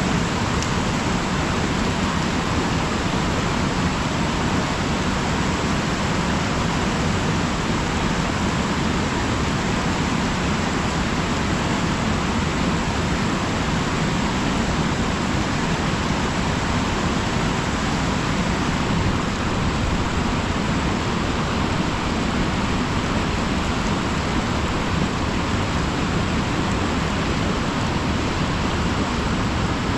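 Steady rushing of river rapids and of water pouring over a low dam's spillway.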